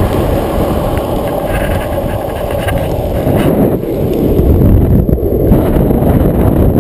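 Wind buffeting a handheld action camera's microphone while a longboard's urethane wheels roll over asphalt on a downhill run. The upper hiss thins out a little before halfway.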